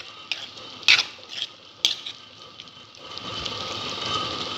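Steel spoon stirring tomato chutney in a kadhai, knocking and scraping against the pan about four times in the first two seconds. After about three seconds the stirring stops and the tomatoes sizzle steadily as they cook over the gas.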